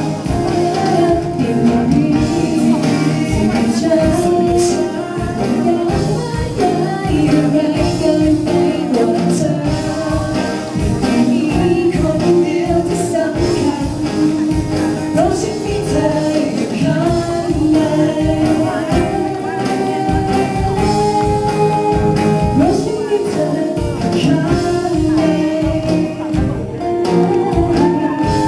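A song playing: a singing voice over backing music with a steady beat.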